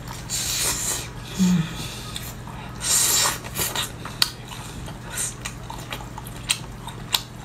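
Close-miked eating sounds: biting into and sucking meat from a cooked lobster tail, with wet slurping bursts and a few sharp clicks of shell.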